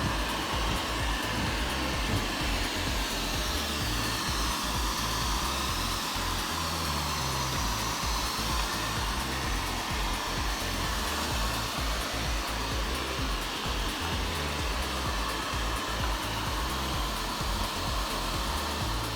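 360 robot vacuum cleaner running, its fan and brushes making a steady whirring noise.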